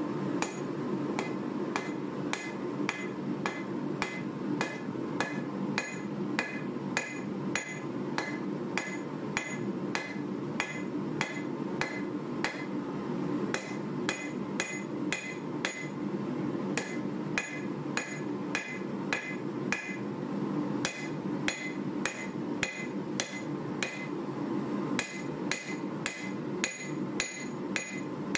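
Hammer blows on a red-hot 1095 carbon steel knife blade against an anvil: a steady run of sharp strikes, about two to three a second, each with a brief metallic ring, with a few short pauses, over a steady low roar.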